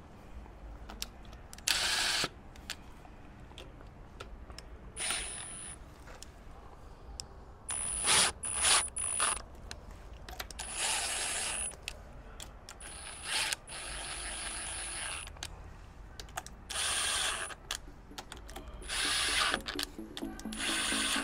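Cordless drill-driver (screw gun) running in repeated short bursts, each about a second long with pauses between, with a high motor whine as it drives bolts on the pump.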